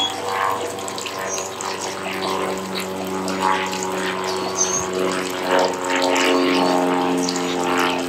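Small birds chirping, with short high calls several times, over a steady low droning hum.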